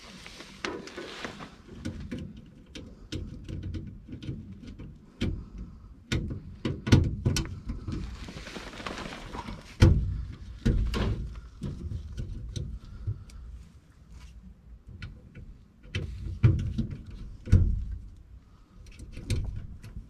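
Handling noise while working on a furnace control board: scattered knocks and clicks of a screwdriver and tools, with a longer rustle of movement about nine seconds in.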